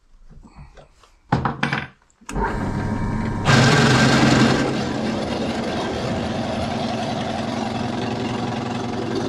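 A clatter of handling, then a bench drill press switched on about two seconds in and running steadily. About a second later the stubby drill bit presses into the steel box-section tube and the sound grows louder and harsher for a moment before it settles back to steady running: the bit is blunt and barely cuts.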